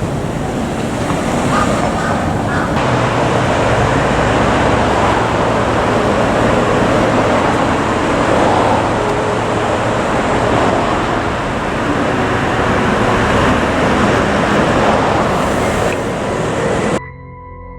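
Steady road traffic noise, an even rushing haze from vehicles on the move, with no siren tone standing out. It cuts off suddenly near the end and soft music takes over.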